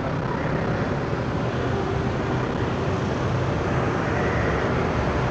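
The Aceh Hebat ferry's engines running steadily beneath the stern deck as the ship gets under way: a steady, really noisy low drone mixed with the rush of the propeller wake.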